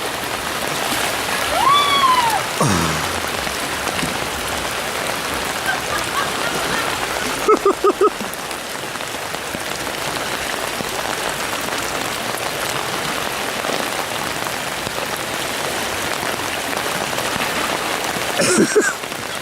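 Fast-flowing floodwater rushing steadily, as a kayak rides the rapids. A person gives a rising-and-falling whoop about two seconds in, four quick short calls around eight seconds in, and a brief shout near the end.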